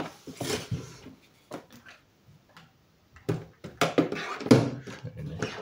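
Hard plastic tackle box being handled: a series of knocks, clicks and scrapes as the box is shifted on the table and a fishing rod is slid into its plastic side rod holder, busiest and loudest in the second half.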